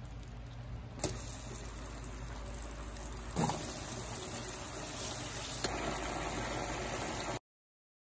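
Stir-fry simmering and sizzling in a frying pan, a steady bubbling hiss, broken by a couple of brief knocks. It cuts off abruptly near the end.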